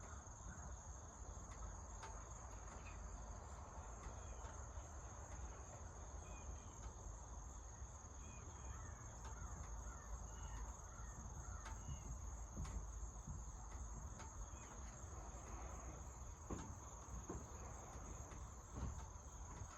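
Outdoor ambience: a steady, high insect chirring, with faint bird calls and a low rumble. A few soft knocks come near the end.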